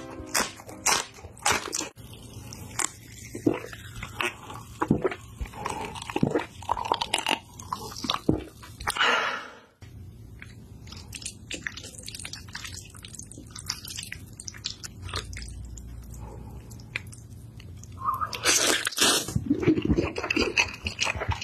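Close-miked crunching and chewing as a raw green chili from chili kimchi is bitten and eaten. After a sudden cut near the middle come quieter, sparser sounds of chopsticks working through sauced fried noodles. Near the end comes loud slurping of a mouthful of noodles.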